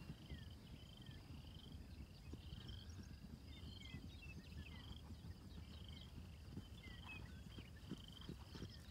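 Faint open-country ambience: an insect's short buzzy trills repeating about every 0.7 s, with scattered bird chirps and a low rumble underneath.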